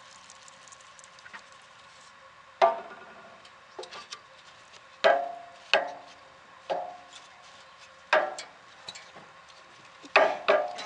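Metal grill grate struck by a wire grill brush: about eight sharp metallic clanks at uneven intervals, each ringing briefly, with two in quick succession near the end.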